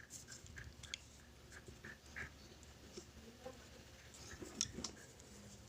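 Faint, scattered small clicks and scrapes of a nebulizer's small parts and wire being handled and fitted.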